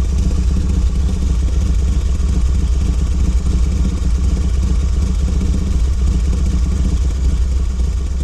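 A machine running steadily: a loud, low hum with a fast even flutter, easing off slightly near the end.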